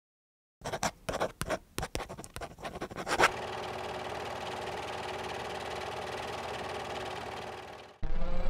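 Production-logo sound effect: a pen scratching across paper in quick, irregular strokes for about three seconds, then a steady whir that fades out. Music with a low beat comes in near the end.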